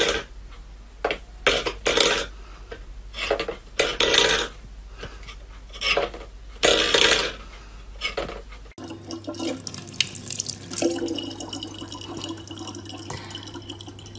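A stainless steel bowl pushed and knocked about on a wooden floor in a series of short, irregular scrapes and clatters. About nine seconds in, these give way to a thin stream of tap water running steadily into a plastic bottle.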